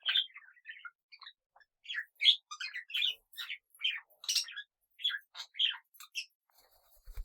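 Small pet parrots chirping and chattering in a busy run of short, quick chirps, with a low thump right at the end.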